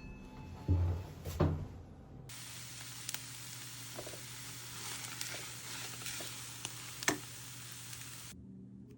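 Food sizzling in a hot frying pan, a steady hiss with a few small ticks and pops. It starts and stops abruptly. Two dull knocks come just before it.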